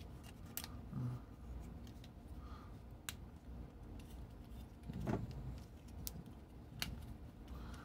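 Plastic parts of a Transformers Earthrise Thundercracker action figure being handled and folded by hand during transformation: faint rustling with a few sharp clicks of joints and panels snapping into place.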